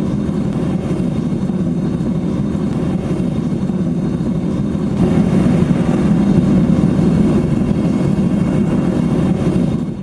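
Propane burner of a gas metal-melting furnace running flat out at melting heat: a steady, loud, low rushing noise of the gas flame. It grows slightly louder about halfway through.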